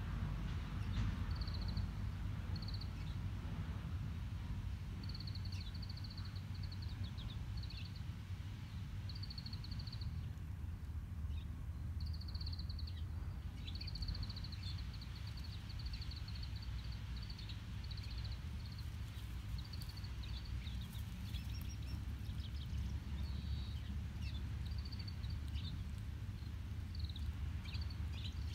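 Outdoor ambience: a steady low rumble, with a small bird chirping over it in runs of short, thin, high notes again and again.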